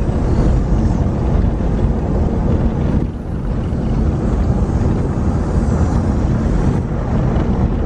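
Steady road and wind noise from a moving car: a loud low rumble with wind buffeting the microphone.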